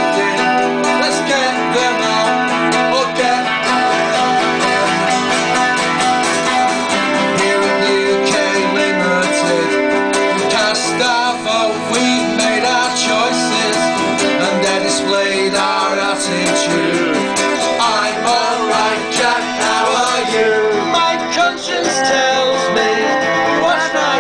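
Live music: two acoustic guitars strummed together, with a man singing into a microphone over them.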